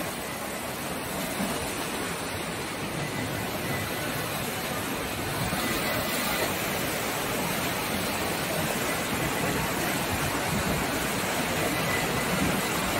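Test discharge of a large mixed-flow pump: water gushing from a vertical discharge pipe onto steel floor grating, a steady rushing that gets slightly louder about five seconds in. The pump and its electric motor run steadily underneath.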